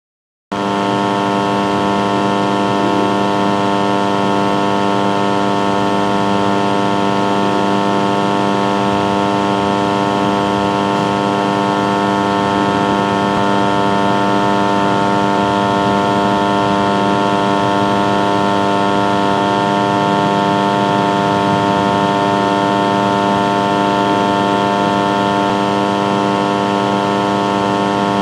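Air conditioner voltage stabiliser humming steadily at close range: a loud electrical mains hum with many steady overtones, unchanging throughout.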